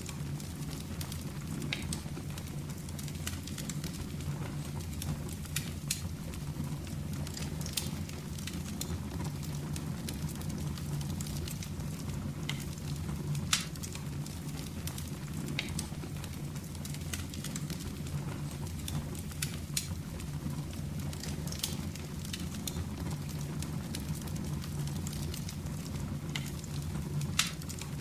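Wood fire burning in a fireplace: a steady low flame noise with scattered crackles and pops, two louder pops about halfway through and near the end.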